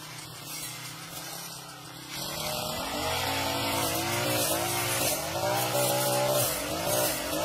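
Brush cutter engine running low for about two seconds, then revving up and rising and falling in pitch again and again.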